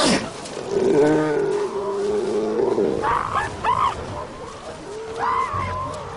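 Southern elephant seals calling: a long, low, drawn-out call about a second in, then several shorter, higher calls that rise and fall. Given the narration, likely females protesting a male's mating attempt. A short sharp noise comes at the very start.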